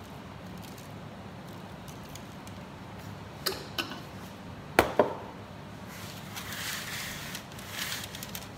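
A glass spice jar clicking as it is handled, then two sharp knocks about five seconds in as it is set down on the counter, followed by parchment paper crinkling as the baking tray is lifted, over a steady low hum.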